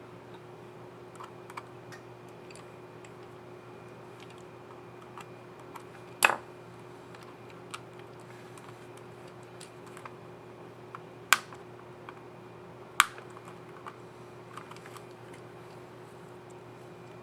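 Small plastic clicks of a laptop keycap and scissor mechanism being handled and fitted on a Lenovo IdeaPad S400 keyboard. Three louder sharp snaps come about six, eleven and thirteen seconds in, as the key is clipped down and pressed. A steady low hum runs underneath.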